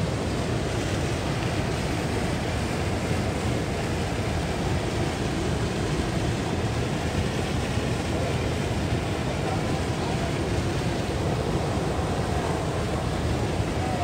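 Steady rush of falling and flowing river water at a waterfall: one even noise that does not change.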